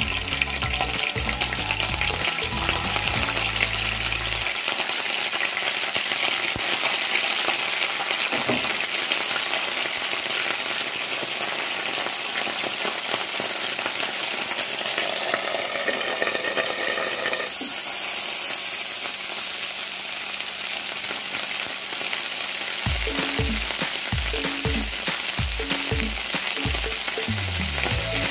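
Canned sardines frying in a little hot oil in a pan: a steady sizzle.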